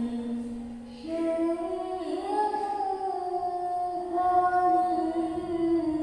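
A young woman's voice reciting the Qur'an in the melodic qiro'at style through a handheld microphone, drawing out long notes. A low held note fades about a second in, then a higher phrase begins, climbs, and is held with small turns in pitch.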